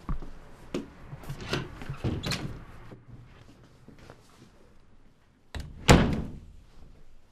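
A door banging shut about six seconds in, the loudest sound, with a short echoing decay. Several lighter knocks and thuds come before it, in the first two seconds or so.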